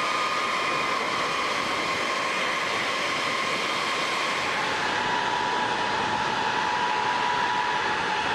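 Boeing B-52H Stratofortress's jet engines running at idle: a steady whine over a loud rushing hiss, with the whine dropping slightly in pitch about five seconds in.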